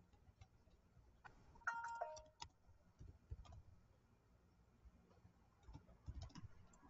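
Near silence with scattered faint clicks, and a short electronic chime about two seconds in: two quick notes falling in pitch.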